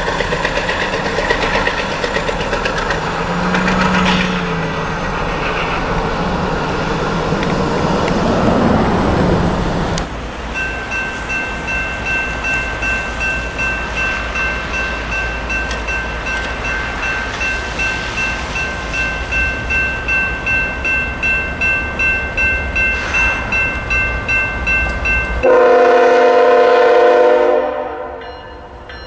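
GE ET44AC diesel locomotive's V12 engine working hard under load. About a third of the way in this gives way to a railroad crossing bell ringing about twice a second. Near the end the locomotive's horn gives one long, loud blast.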